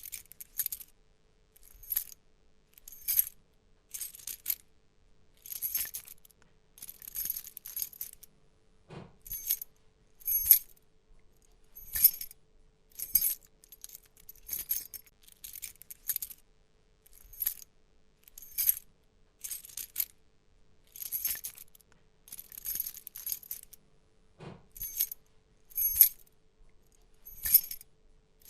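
A bunch of keys on a keychain jangling in short shakes, roughly one shake every second, with bright metallic chinking. A couple of duller knocks sound among the jingles, about a third of the way in and again later.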